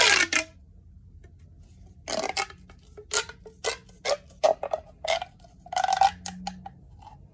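Mini plastic pop tube being stretched and bent, its ridged sections snapping out and in with a series of irregular sharp pops and crackles.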